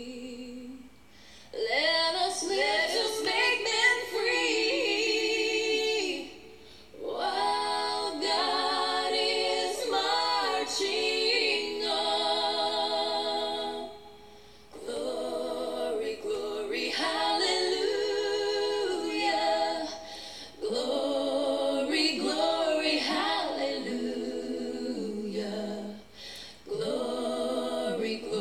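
A woman singing a slow song without accompaniment, with vibrato on the held notes, in long phrases broken by short pauses.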